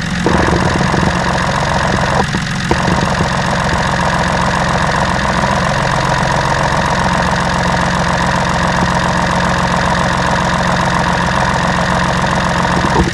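Idling diesel engine heard through a mechanic's stethoscope held on the fuel return (low-pressure) line: a steady mechanical clatter with fast ticking, the sound of diesel flowing back at low pressure.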